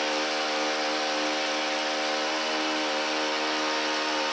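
Stihl HT131 pole pruner's 4-MIX engine running steadily at about half throttle, just off idle, held there by its start/half-choke setting.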